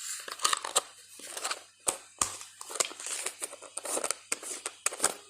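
Slime being squeezed and worked by hand, giving irregular sticky clicks and crackles.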